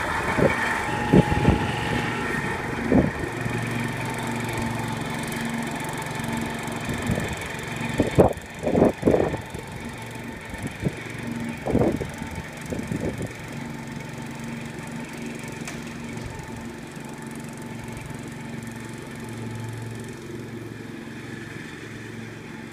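Gravely two-wheel tractor with a front mower deck, its engine running steadily while mowing and growing fainter as it moves away. There are several loud short thumps in the first half.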